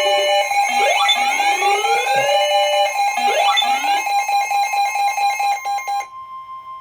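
Emergency Alert System attention signal: a steady two-tone alarm, with rising sweeping tones repeating over it. It cuts off about six seconds in, and one tone lingers faintly a moment longer.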